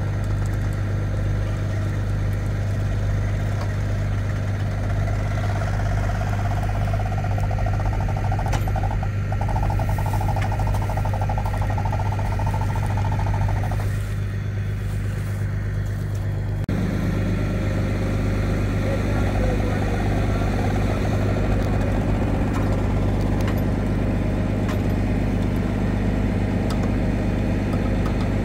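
Heavy wrecker tow truck's diesel engine idling steadily, a constant low hum.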